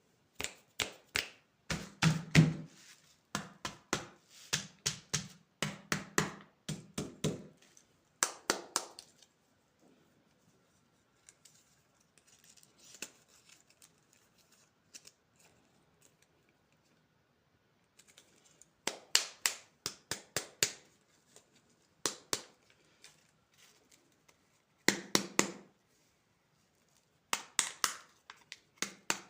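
Candy packaging being handled and opened by hand: runs of sharp crinkles, clicks and tearing in bursts with quiet gaps between them.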